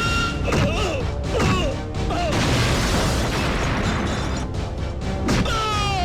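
Dramatic film background score mixed with loud crashes and booming impacts, as in a movie fight scene.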